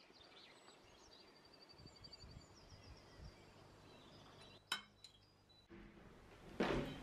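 Faint birdsong with quick trills and whistled notes, then a sharp click a little past halfway. Near the end comes the rumble and knock of a door being opened.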